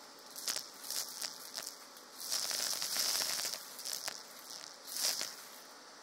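Roasted coffee beans clattering as they are sucked into a vacuum cleaner's metal tube, over a faint steady hiss. There are scattered single clicks, then a dense rattle of beans for about a second from just past two seconds in, then a few more clicks.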